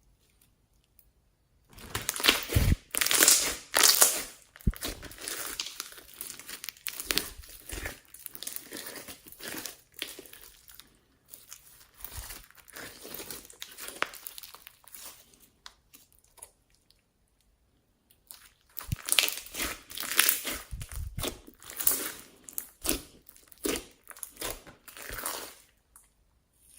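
Hands squeezing and stretching glossy slime mixed with floam beads, crackling and crunching in irregular bursts. It starts about two seconds in, pauses for a few seconds past the middle, and then resumes.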